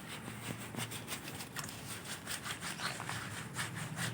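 Hands scrubbing a dog's wet coat during a bath, a run of quick, uneven rubbing strokes.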